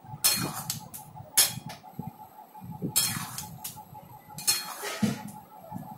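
A steel ladle scraping and knocking against a metal kadai as it stirs through gravy, in about five separate strokes.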